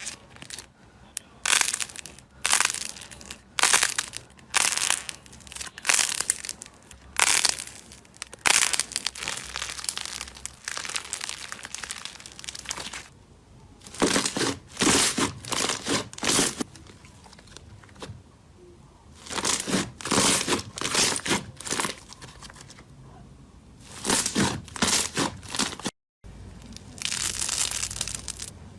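Slime being squeezed and pressed by hand, giving crackling, crunchy bursts, about one a second at first, then in quicker clusters. A brief dropout near the end is followed by a denser, steadier crackle.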